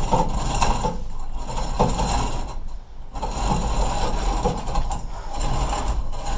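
Chain hoist being worked, its chain clicking and rattling through the hoist as an outboard motor is lowered with its tilt/trim release valve open to bleed air from the hydraulics. The rattling stops briefly about three seconds in.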